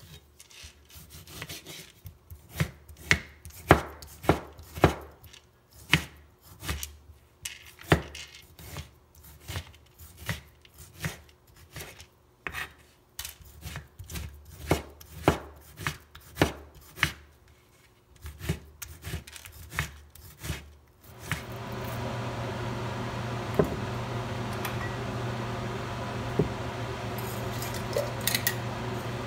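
A kitchen knife chopping a tomato on a plastic cutting board: sharp, irregular knife strikes against the board, one to two a second. About two-thirds of the way in the chopping stops and a steady hiss with a low hum takes over, with a few light pops, from oil heating with mustard seeds in a saucepan on the stove.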